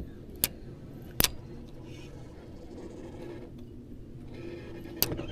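Three sharp clicks from a spinning reel being handled, about half a second in, just past a second in and near the end, over a low steady hum.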